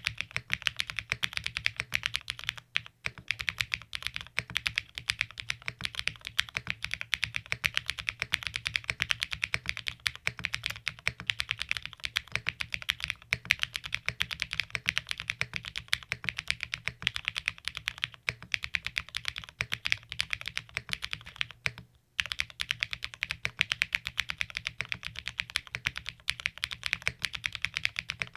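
Continuous fast typing on a NEO80 mechanical keyboard built plateless and gasket-mounted on gasket jackets, with Holy Chickies switches and Keykobo VOC keycaps. The key strokes come in a dense stream, with two short breaks: about three seconds in and around twenty-two seconds.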